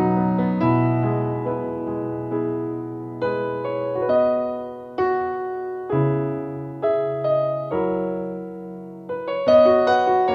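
Background music: a slow piano piece, notes and chords struck every half second or so and left to fade.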